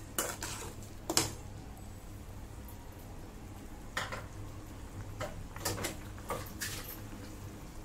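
A ladle knocking and clinking against a cooking pot while a thin curry is stirred: a sharp knock about a second in, then a few lighter scattered clicks later.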